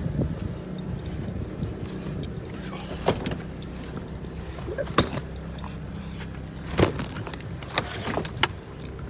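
A car engine idling steadily, with several sharp clicks and knocks as the car's trunk is opened and the luggage inside is handled; the loudest knock comes about two-thirds of the way through.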